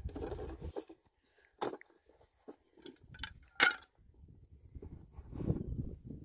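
Cut bamboo pieces knocking and clicking against each other and a plastic basin as they are handled, a few separate sharp clicks with the loudest about three and a half seconds in. Low rumbling handling noise at the start and again near the end.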